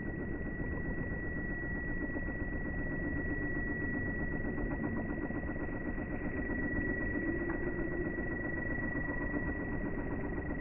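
A small motor running steadily with a constant high tone over a low hum.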